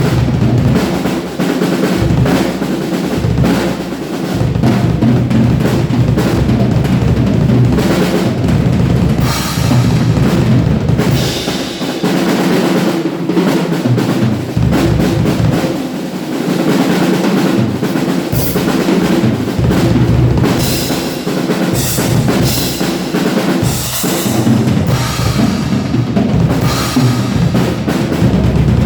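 Drum kit played continuously, with bass drum, snare and fills, and cymbal crashes that swell in and out several times. It is recorded with a single mobile phone.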